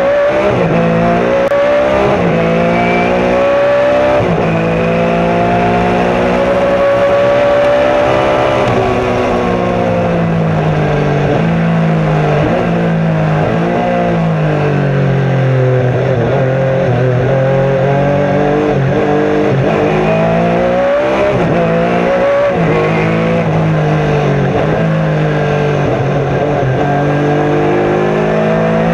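Small-block V8 of a 1990 Chevrolet Beretta Trans-Am race car, heard from inside the cockpit at racing speed. The engine's pitch climbs under acceleration, then drops sharply for braking and downshifts, several times over, with brief breaks at the gear changes.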